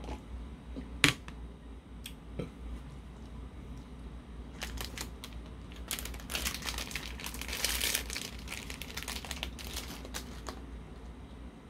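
Plastic wrapper of an individually wrapped custard cake crinkling and tearing as it is opened by hand, a dense crackle lasting about five seconds from near the middle. A single sharp knock comes about a second in.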